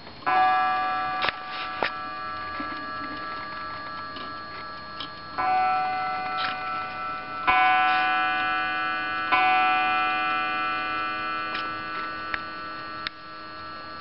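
Japy Frères French mantel clock striking four times as its minute hand reaches the hour. Each blow rings on and slowly dies away, the first set apart from the last three, which come about two seconds apart, with faint ticking and clicks between.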